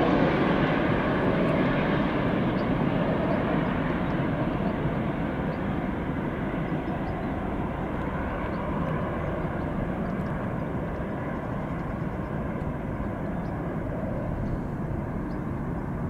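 Jet engines of a Boeing 737 airliner on final approach, a steady noise that fades slowly as the plane flies away toward the runway.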